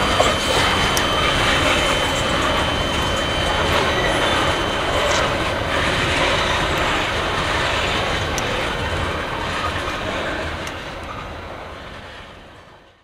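Freight train of tank cars rolling past: the steady rumble and clatter of steel wheels on rail, with a thin high wheel squeal on the curve. The sound fades away near the end.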